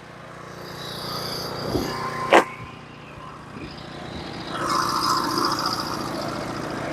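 Portable band sawmill's engine running steadily and growing louder. There is a sharp click about two and a half seconds in, and a higher hissing noise joins about four and a half seconds in.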